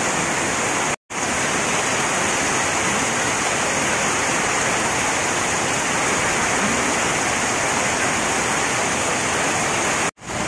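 Heavy rain pouring down in a steady, dense hiss, broken by two brief sudden dropouts, about a second in and near the end.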